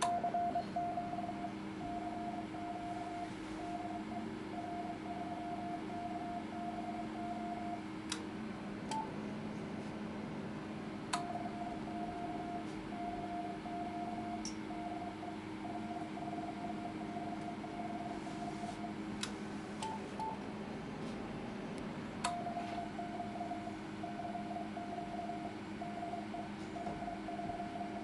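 Morse code (CW) tone from a transceiver being keyed: one steady beep switched on and off in dots and dashes, in three runs with two short pauses between them. A few sharp clicks and two brief higher beeps fall in the pauses, and a steady low hum runs underneath.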